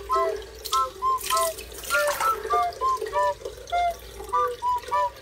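Water dripping and splashing into a basin of water as a wet cat is rinsed: quick plinking drops several times a second over a steady trickle, with a few short splashes of poured water.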